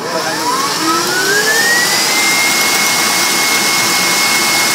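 Electric mixer speeding back up while whipping egg whites and sugar into meringue: its motor whine rises over about two seconds, then holds steady at high speed.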